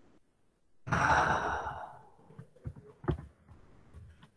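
A person's long breathy sigh about a second in, fading out, followed by a few faint clicks.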